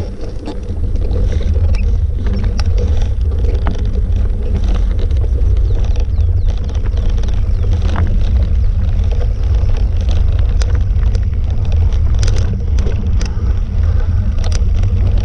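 Wind buffeting the microphone as the camera moves along the track: a loud, steady, fluttering low rumble, with scattered small clicks and crunches throughout.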